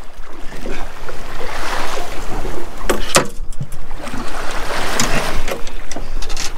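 Wind rushing on the microphone and sea water moving against a small boat's hull, with a few sharp knocks, two close together about three seconds in.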